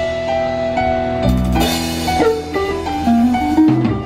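Live band playing a song on electric guitars, keyboard and drum kit, with a cymbal crash about a third of the way in.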